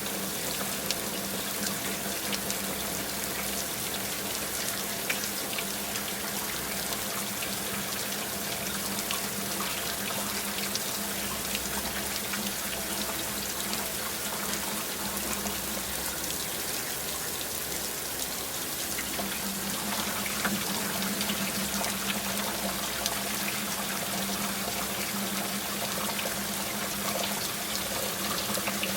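Heavy rain falling steadily: a dense, even patter of countless drops, with a steady low hum underneath that fades out for a few seconds midway.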